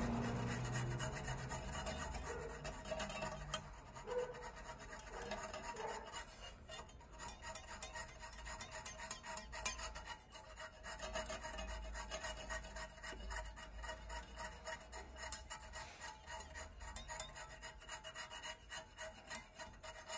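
Hand file rasping on a metal clutch-cable fitting in quick, uneven strokes, taking the sharp edge off it.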